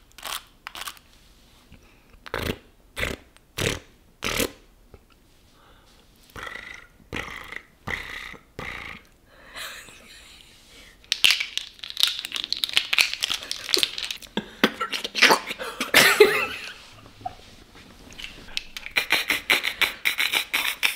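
Mouth-made sound effects into a close microphone: a handful of separate pops and clicks, then from about halfway a dense, rapid run of clicking and crackling.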